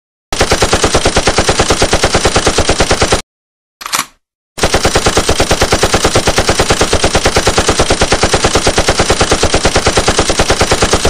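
Machine-gun fire sound effect: rapid, evenly spaced automatic shots in a long burst, a short break with one brief sound, then a second long burst that keeps going.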